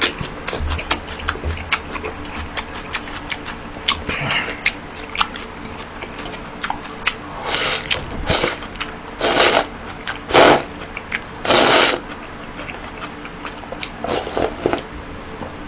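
Close-miked eating sounds: chewing and swallowing clicks, then gulping cold mul-naengmyeon broth straight from a steel bowl, with a run of louder gulps about a second apart midway.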